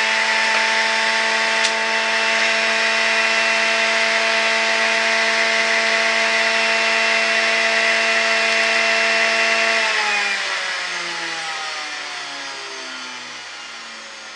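Electric juicer's motor running at a steady high speed, then switched off about ten seconds in and spinning down, its pitch sliding lower as it slows and fades.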